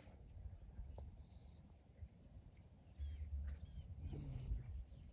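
Faint outdoor ambience: low rumble of wind on the microphone, with a few short, faint bird chirps.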